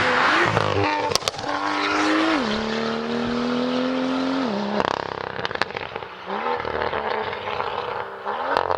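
BMW M2's turbocharged straight-six running loud through an Fi aftermarket exhaust. The engine note climbs slowly, drops sharply twice, then swells again, with sharp pops and crackles from the exhaust now and then.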